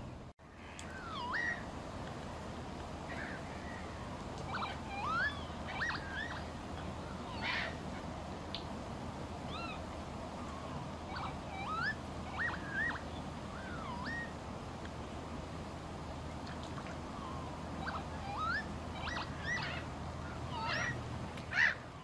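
Birds calling at a wetland: many short whistled notes that slide up and down, scattered throughout, over a steady low rumble.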